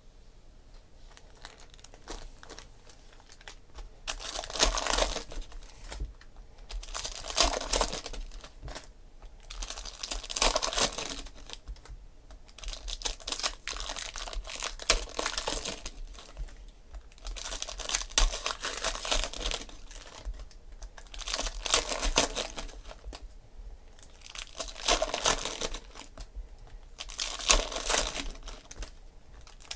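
Foil wrappers of Panini Prizm football jumbo card packs crinkling and tearing as they are ripped open by hand. The noise comes in repeated bursts every two to three seconds, starting about four seconds in.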